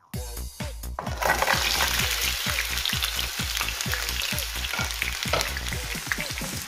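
Peeled shrimp dropped into hot olive oil in a frying pan, the oil sizzling. The sizzle starts abruptly about a second in and then keeps up steadily as the shrimp fry.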